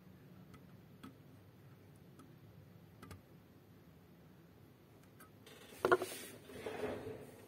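Faint ticks about once a second. Near the end comes a sharp knock, then about a second of rustling, as a hand presses the after-market OCXO GPSDO module down onto the USRP B210 board and pulls away.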